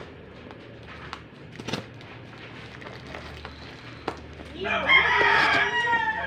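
A rooster crows once, a single long call starting about four and a half seconds in. Before it, faint clicks and scrapes of a small knife cutting the packing tape on a cardboard parcel.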